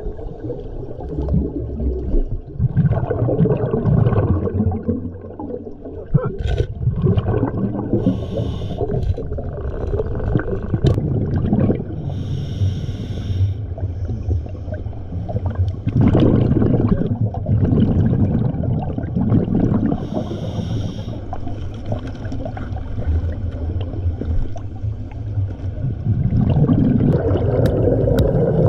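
Scuba diver breathing through a regulator underwater: a few short hissing inhales, with the low rumble and gurgle of exhaled bubbles between them.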